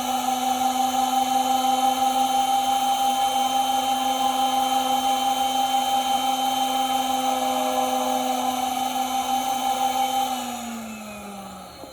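Robotic high-security key cutting machine's cutter motor running with a steady whine while cutting a key. Near the end the pitch falls and the sound fades as the motor spins down.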